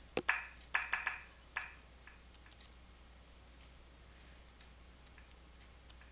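Several quiet clicks and taps from handling a tablet, its buttons or screen being pressed: a cluster of four or five in the first two seconds, then a few fainter ticks later on.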